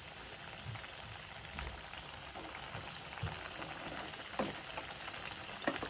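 Breaded chicken pieces deep-frying in hot oil: a steady sizzle with scattered small pops and crackles.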